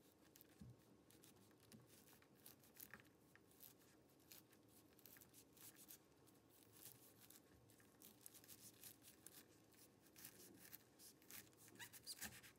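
Near silence, with faint scattered ticks and scrapes of a kitchen knife slicing kernels off an ear of sweet corn, coming more often near the end.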